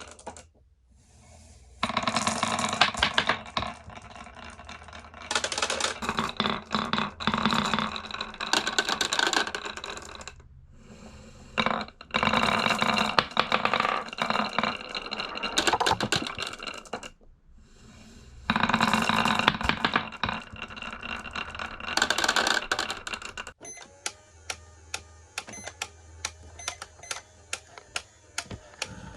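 Glass marbles rolling and clattering down toy marble-run slopes, in several runs of a few seconds each with short pauses between. Near the end the rattling gives way to a regular clicking about twice a second.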